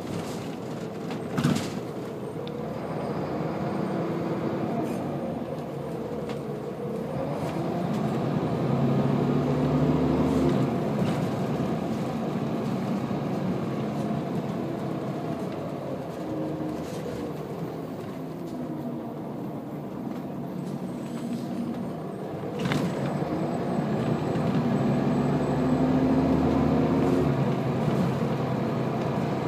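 Scania L94UB bus's nine-litre five-cylinder diesel and ZF automatic gearbox, heard from inside the saloon as the bus drives along. It pulls away twice with the pitch rising through the gears, easing off in between. There are two sharp knocks, one near the start and one about 22 seconds in.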